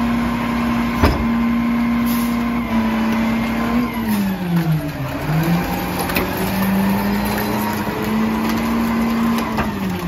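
Mack LR garbage truck engine running at a raised, steady speed. Its pitch sags and recovers about halfway through, then drops again near the end as the truck pulls away. A sharp snap comes about a second in.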